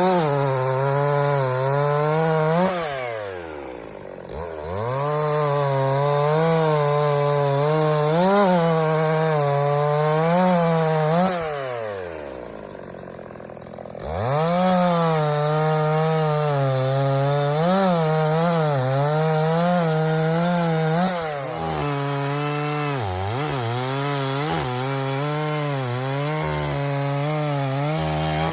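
Gas chainsaw bucking black walnut logs at full throttle, its pitch wavering as the chain bites into the wood. Twice the throttle is let off and the engine winds down, about three seconds in and again near twelve seconds, before it is revved back up for the next cut.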